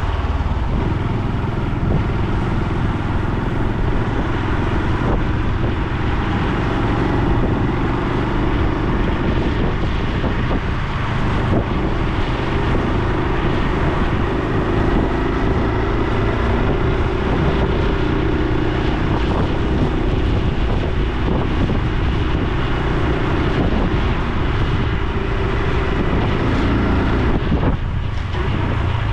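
Honda Super Cub C125's single-cylinder four-stroke engine and exhaust running on the move, the pitch rising and falling slowly with engine speed. It eases off briefly near the end.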